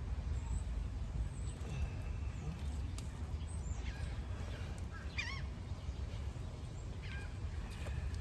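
Several short bird calls with quick up-and-down pitch glides, the clearest a wavering call about five seconds in, over a steady low rumble.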